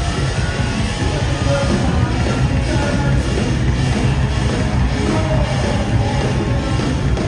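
Rock band playing live through a festival PA, loud and full, with the drums keeping a steady beat.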